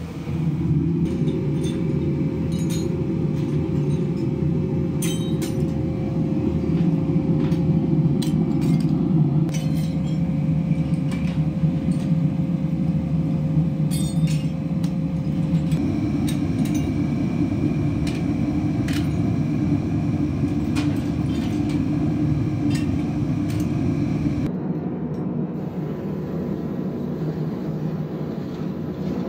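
Steady roar of a fired metal-melting furnace, with scattered clinks of scrap metal dropped into it. About 25 seconds in it gives way to a quieter, steady machine hum.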